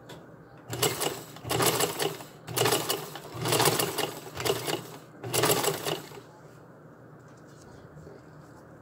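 Vintage black sewing machine stitching a ribbon onto a collar strap. It runs in several short bursts with brief pauses for about five seconds, then stops.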